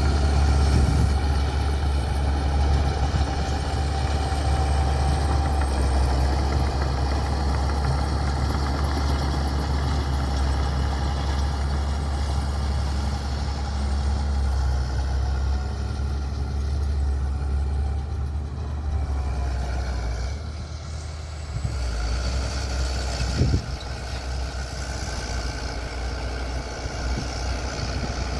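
Bulldozer's diesel engine running steadily, with a single sharp clank late on.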